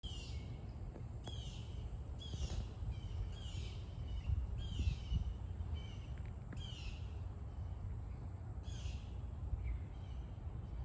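A bird outdoors giving a series of short, harsh, downward-sweeping calls, one every second or two, over a steady low rumble.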